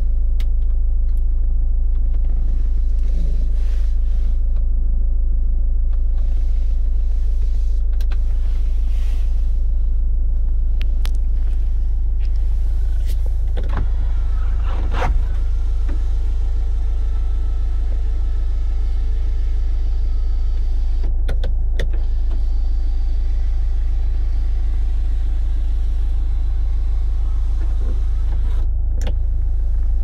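Engine of a 2008 Chevrolet Windstorm (Captiva) SUV idling steadily at about 1,000 rpm, heard inside the cabin. About halfway through come a few switch clicks and a few seconds of electric motor whine from the power sunroof moving, with more clicks near the end.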